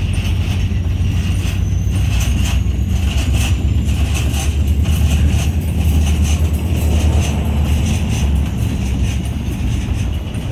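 Freight train of container-carrying well cars rolling past close by: a steady low rumble from the wheels on the rails, with irregular clicks and clanks as the wheels and trucks pass.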